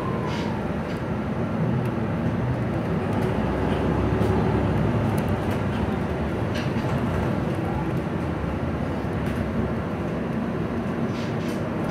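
Cabin noise of a MAN NL323F Lion's City single-deck bus on the move: a steady engine and road rumble, a little louder around four seconds in, with a few short clicks and rattles.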